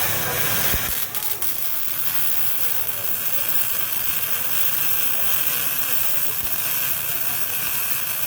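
MIG welding arc running steadily, a continuous hiss as a bead is laid on a small plate. A low rumble drops away about a second in.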